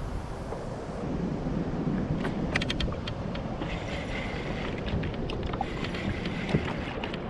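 Wind buffeting the microphone over water lapping around a kayak. A quick run of clicks comes about halfway through, and from about four seconds in a faint steady whine fits a spinning reel being cranked while a hooked fish is played.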